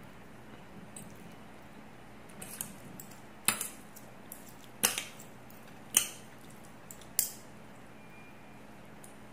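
Metal fork and chopsticks clinking against a ceramic plate while noodles are lifted and stirred: four sharp clinks about a second apart, with a few lighter taps around them.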